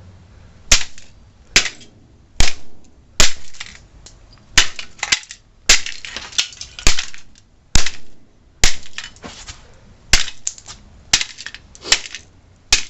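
A cheap computer power supply being smashed: about a dozen sharp, heavy blows roughly one a second, several followed by crunching and rattling as the unit breaks.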